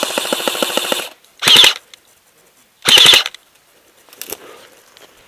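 Airsoft AKS-74U replica firing on full auto: a burst of rapid shots lasting about a second, then two short bursts at about one and a half and three seconds in, the short bursts the loudest.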